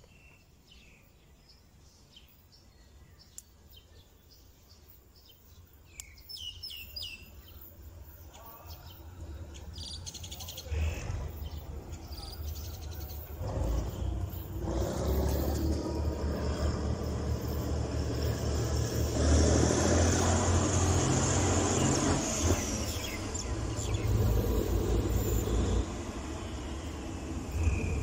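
Birds chirping at first, then the GEK 4043 diesel locomotive approaching with its train. Its low engine rumble swells from about ten seconds in and is loud through the second half.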